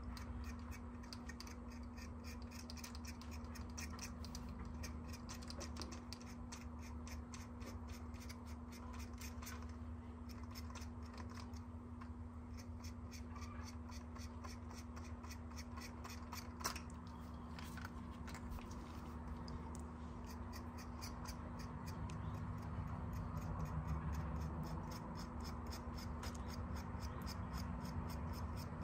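Light, quick scratching strokes of a thin metal tool across the painted body of a fishing lure, roughing up the paint so it looks like fine hair. The strokes come in a steady run over a low, steady hum, with one sharper click about two-thirds of the way through.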